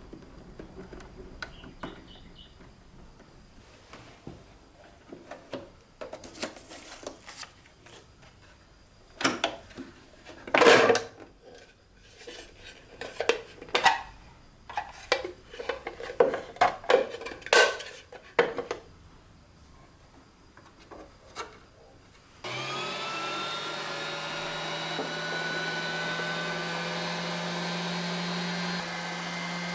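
Scattered knocks and rubbing from objects being handled, then a small electric motor switches on about 22 seconds in, its pitch rising briefly as it spins up, and runs steadily.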